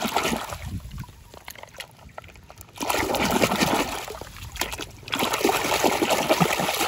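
Water splashing and sloshing as a hand swishes a plastic toy car back and forth through shallow muddy water. It fades after the first second and comes back in two bouts, about three seconds in and about five seconds in.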